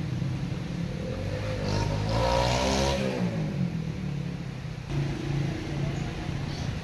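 A motor vehicle drives past, loudest a couple of seconds in, its engine pitch falling as it goes by, over a steady low engine drone.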